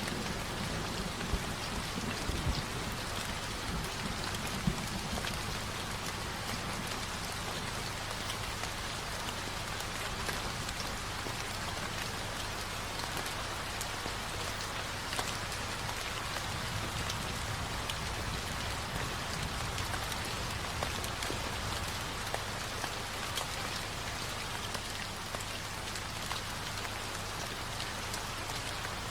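Steady heavy rain on a surface, from a rain-sound recording, with a low rumble of thunder dying away in the first few seconds.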